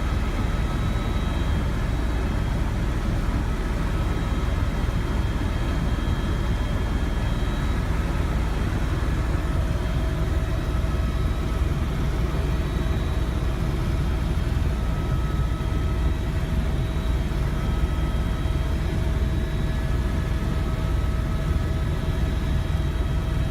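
Tour helicopter in flight: steady engine and rotor noise, heaviest in the low end, with faint steady tones above it.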